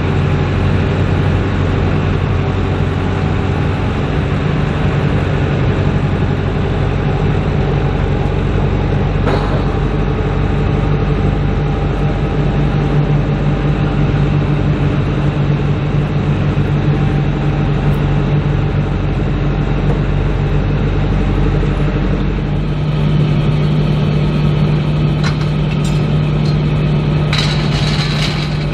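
Steady, loud low hum of heavy vehicle machinery running at idle, a constant drone that shifts in tone about two thirds of the way through, with a few faint clicks.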